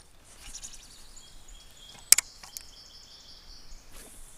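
Quiet outdoor background with a sharp knock at the start and a louder double knock about two seconds in, and a faint high steady tone between them.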